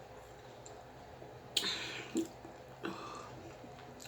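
Close-up eating sounds from a person eating spicy Korean army stew: a few short, wet mouth sounds, the loudest about a second and a half in and another near three seconds.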